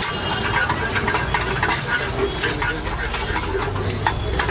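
Food sizzling in a frying pan over a gas burner, with frequent clinks and scrapes of metal spatulas against the pan as the pieces are turned.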